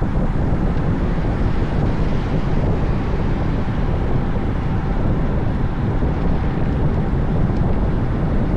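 Steady wind rush buffeting the microphone of a bike-mounted camera while riding a road bike at speed.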